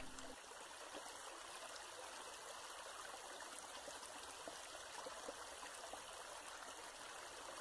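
Faint, steady rush of running water, an even hiss with no separate splashes.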